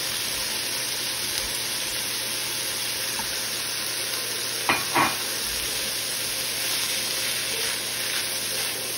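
Cold cooked rice sizzling in hot oil in a wok as a spatula stirs it: a steady sizzle throughout, with two brief louder sounds about halfway through.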